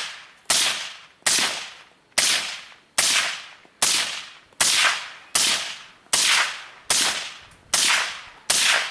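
Suppressed gunshots fired one after another at a steady pace, about a dozen sharp cracks spaced roughly 0.8 seconds apart, each trailing off quickly.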